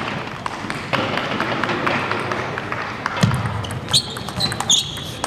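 Table tennis rally: the celluloid ball clicks sharply off the paddles and table several times within a second or so, starting about four seconds in, with footwork thuds on the hall floor. Before that there is a murmur of spectator chatter.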